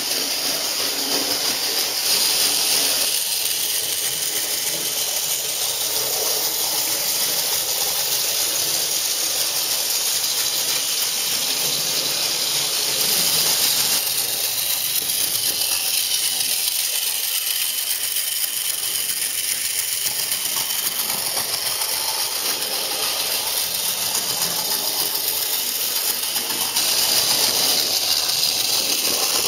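Mainline J72 OO gauge model locomotive running round the layout with its coaches. Its small electric motor, freshly fettled gears and new axles make a steady high whirring hiss, with the wheels rattling on the track.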